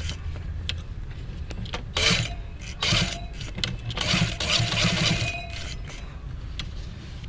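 Sewing machine running with a steady hum, with a few louder short bursts about two, three and four to five seconds in, while stitching around the corner of a half-band (cut ban) collar.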